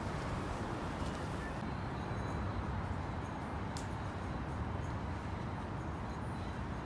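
Steady low rumble of city background noise, like traffic or a running vehicle, with a faint tick near the middle.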